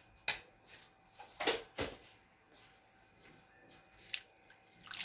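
A hand stirring shredded potato in a bowl of salted water, with a few short splashes and wet squelches.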